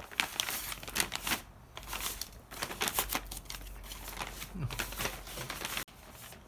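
Packaging crinkling and rustling as it is handled, a dense run of irregular rustles that cuts off abruptly near the end.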